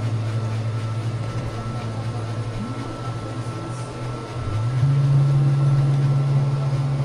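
A steady low mechanical hum that rises a little in pitch about four and a half seconds in and then holds steady.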